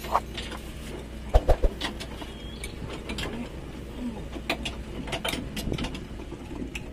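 Irregular clicks and metallic knocks of hand-tool work on an outboard engine mounting, with a few louder knocks about a second and a half in, over a steady low hum.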